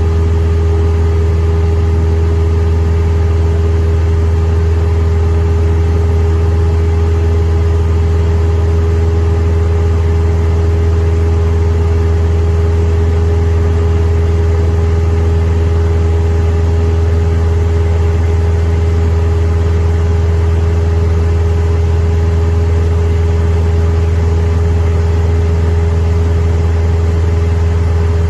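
Cessna 172M's four-cylinder Lycoming engine and propeller droning steadily in flight, heard from inside the cabin, with an even pitch.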